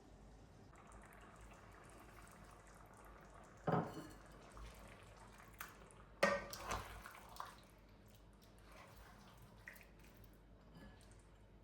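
Water from a tap running faintly into a sink, with two sharp knocks of dishes, about four and six seconds in, and a few lighter clicks.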